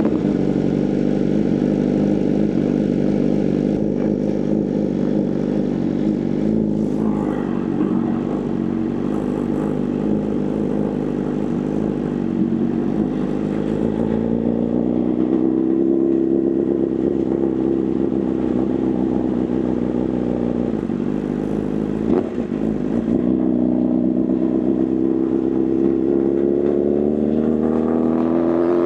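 Inline-four superbike engine running at steady riding revs, its pitch climbing gently as it pulls harder about halfway through and again near the end.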